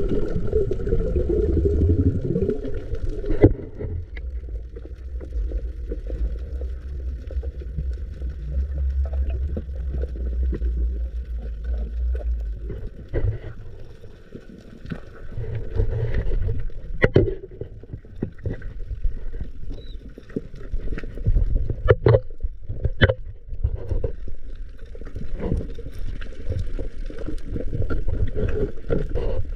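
Water rushing and sloshing against the camera microphone in a steady low rumble, with bubbling and a few sharp knocks in the second half.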